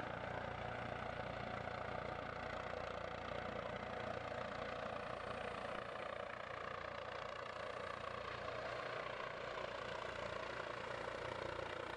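Airbus EC155 twin-turbine police helicopter hovering, its rotor and turbines giving a steady, even noise.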